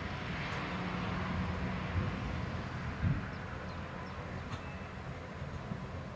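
Distant thunder rolling as a long, low rumble, with two short thumps a second apart around the middle.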